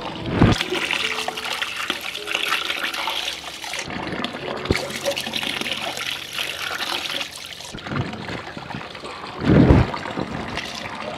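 Water running and splashing in two stretches of a few seconds each, as in washing at a tap, with a low bump about half a second in and a louder one near the end.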